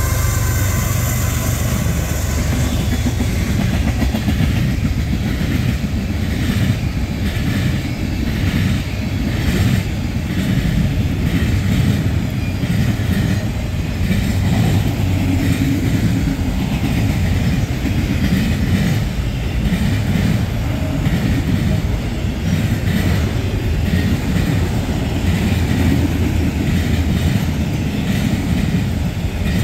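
A train rolling past: a steady heavy rumble with a rhythmic clickety-clack of wheels over rail joints.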